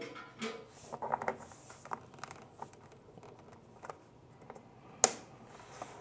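Rustling and light clicking of a power cable and plug being handled, with one sharp, loud click about five seconds in.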